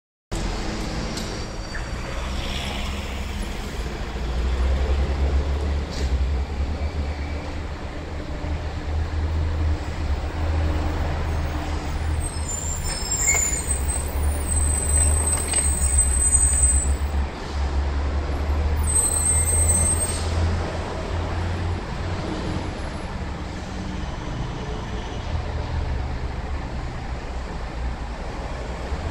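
Busy city street traffic: buses and cars passing with a steady low engine rumble and the hiss of bus air brakes. High-pitched squeals come in twice around the middle.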